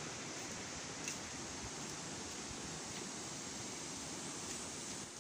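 Steady, even rushing of a shallow river flowing over rocks, with a single light click about a second in.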